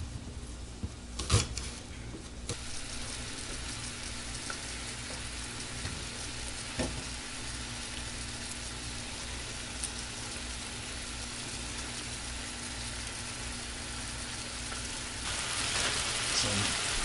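Raw chicken pieces sizzling in olive oil in a frying pan, a steady frying hiss that grows louder near the end. About a second in, a knife strikes a wooden cutting board once.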